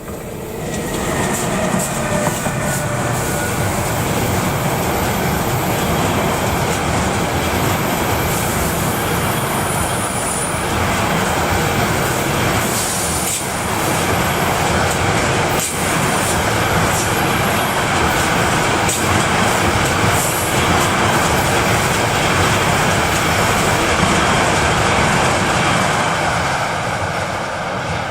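Freight train rolling past close by: a steady rumble of wagons that swells in the first second or two. Short high wheel squeals come through now and then, with a couple of single clacks over the rail joints.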